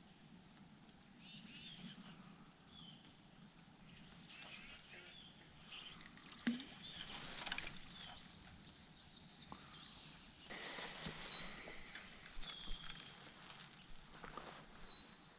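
Steady high-pitched insect chorus, held on one unbroken tone. A few short falling chirps sound over it in the second half.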